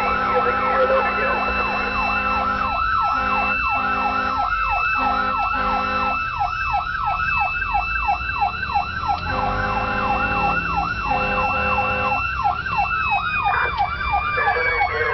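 Fire rescue truck's electronic siren yelping fast under a steady high wail that starts winding down in pitch near the end, with two runs of short air-horn blasts, heard from inside the cab while responding to an emergency.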